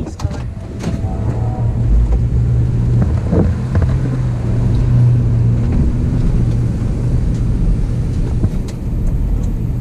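Vehicle engine and road noise heard from inside the cab while driving slowly: a steady low engine hum over rumble, settling a little lower near the end.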